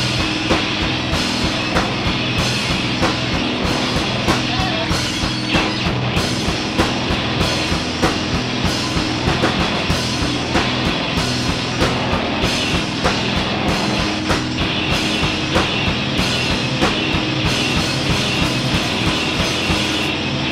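Live rock band playing loud, with no singing: a drum kit drives a fast, busy beat of drum and cymbal hits over electric bass and effects-processed instruments.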